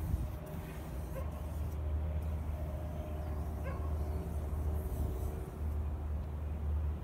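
Steady low rumble of distant city traffic, with a dog barking faintly twice, about a second in and again near four seconds.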